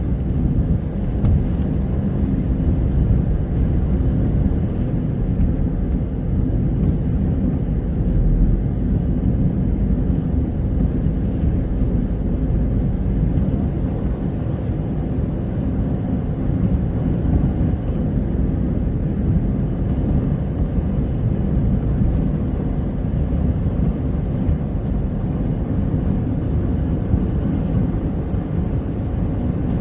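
A car driving, heard from inside the cabin: a steady low rumble of engine and road noise with no change in pace.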